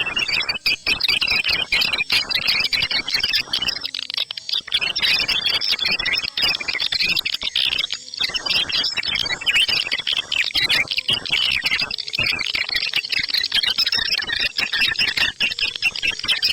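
Swiftlet lure call for a bird-nest house: a dense, unbroken chorus of rapid high chirps and clicking twitters from edible-nest swiftlets, the 'ceklok' call type.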